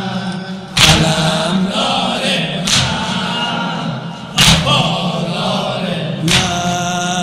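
A crowd of mourners beating their chests in unison during a Shia noha, one loud, echoing slap about every two seconds, four times. Between the slaps a chorus of men's voices chants.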